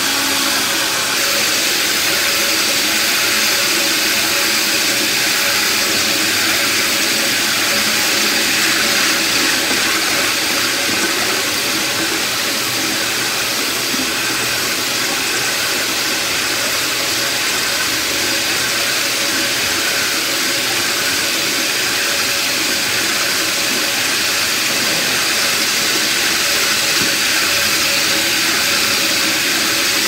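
Ruwac Patriot Pro 453 CFM industrial vacuum running hooked up to a 30-inch floor grinder grinding concrete: a loud, steady rushing of suction and grinding that holds even throughout.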